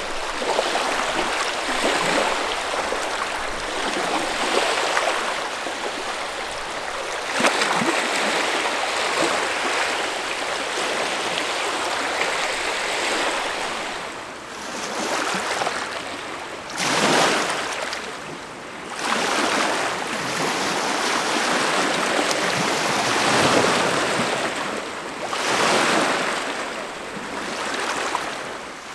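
Small lake waves washing onto the shore and its stones, a continuous rushing that swells and ebbs every few seconds.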